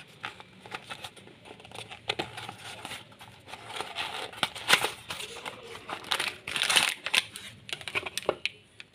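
Plastic packaging crinkling and rustling in irregular bursts as a small parcel is unwrapped by hand, loudest about halfway through.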